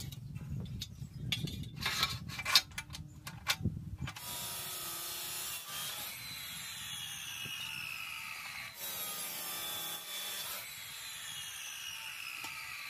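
Scraping and clicking of a scribe being drawn along steel square tubing against a metal square. About four seconds in, an abrasive cut-off saw starts cutting through the tube: a steady grinding hiss with a whine that keeps falling in pitch.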